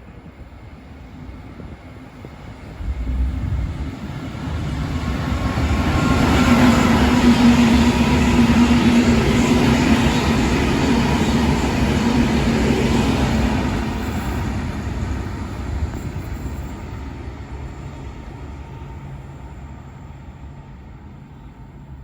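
A train passing by. Its rumble comes up about three seconds in, is loudest around the middle, then fades away slowly.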